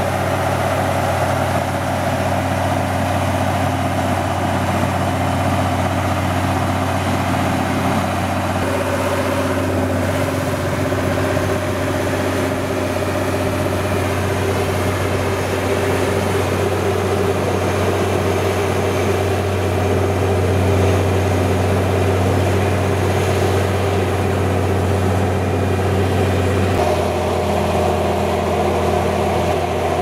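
Komatsu GD505A motor grader's diesel engine running steadily under load as the machine grades the gravel road. The engine note shifts twice, at about eight seconds and near the end.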